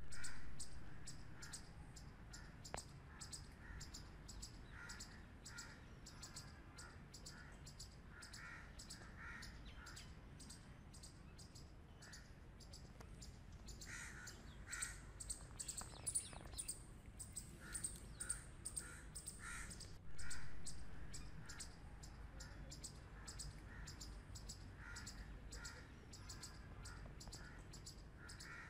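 Grey squirrels calling: a fast clicking buzz runs on throughout, with short harsh calls repeated in quick groups every few seconds. Twice, at the start and about two-thirds through, a louder sound swells and fades over a couple of seconds.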